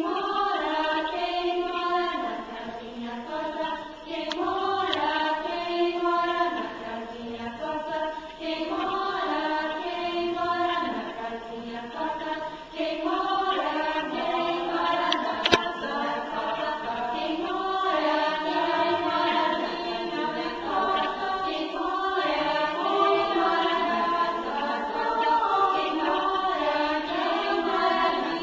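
A small choir of children and adults singing a song together. A single sharp click sounds about halfway through.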